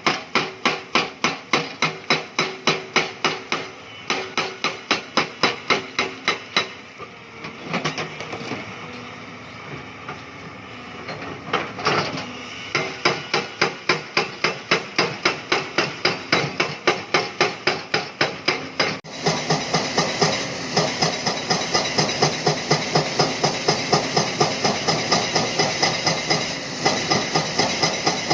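Hydraulic rock breaker on a Hyundai excavator hammering limestone, fast, evenly spaced blows several a second over the machine's engine. The blows weaken for a few seconds about a third of the way in, then pick up again, and the sound changes suddenly about two-thirds of the way through.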